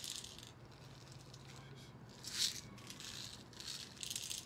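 Steel BBs rattling in a small plastic bottle as they are poured into the loading port of an Umarex Steel Force BB gun, in several short bursts, the loudest about two and a half seconds in.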